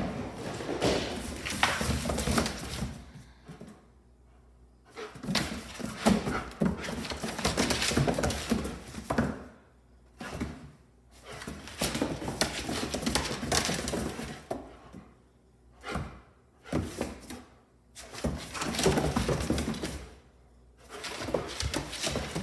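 Two dogs, an adult and a puppy, play-wrestling on a tile floor: claws scrabbling, paws slapping and bodies thumping against wooden cabinets, in bursts of a few seconds with short quiet pauses between.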